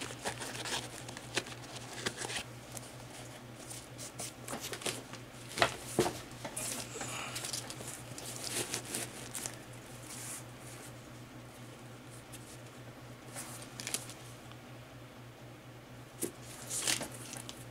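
Hands handling a sneaker: scattered rustling, crinkling and light clicks as the shoe is turned over, with a couple of sharper knocks about six seconds in and near the end. A steady low hum runs underneath.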